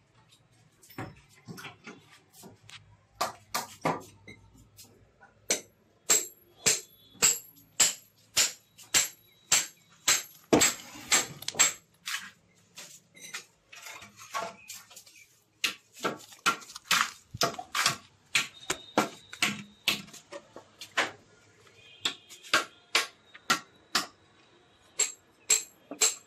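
Hammer striking a steel chisel to cut a groove in a brick wall for wiring: sharp metallic strikes, about two a second, in runs with short pauses.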